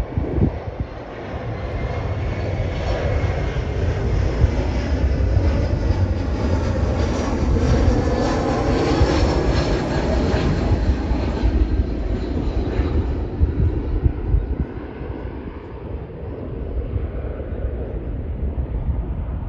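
Twin-engine jet airliner taking off under full thrust. The jet engine noise builds during the takeoff roll and is loudest around lift-off about halfway through, then fades as the plane climbs away.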